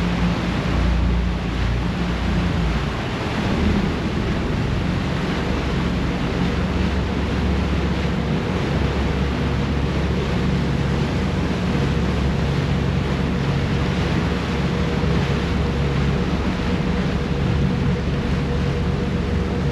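A ferry under way: its engine runs with a steady low hum over the rush of propeller wash churning behind the stern, with wind on the microphone. A faint higher engine tone comes in about eight seconds in.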